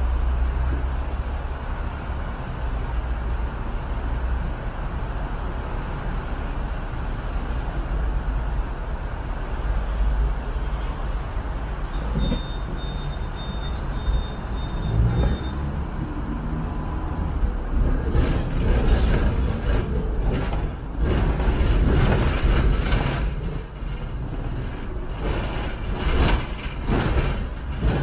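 Hong Kong double-decker electric tram running, heard from on board: a steady low rumble, with loud irregular clattering and rattling through the second half.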